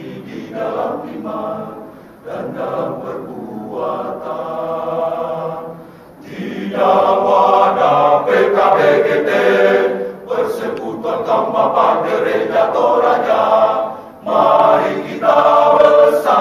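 A choir singing long held notes, growing louder about seven seconds in.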